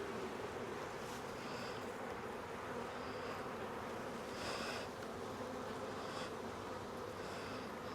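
A mass of honeybees buzzing steadily around an open nuc, a constant hum with brief louder passes now and then.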